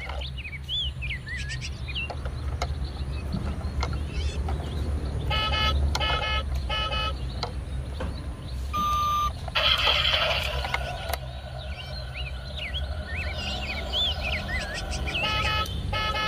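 Electronic sound effects from a battery-powered toy school bus: three short horn toots about five seconds in, a brief beep and a burst of hiss around nine to ten seconds, then three more toots near the end. Birds chirp in the background.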